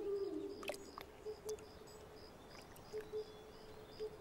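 Evening forest ambience: a high, short chirp repeats evenly about two or three times a second over a steady low tone. A few sharp clicks fall in the first second.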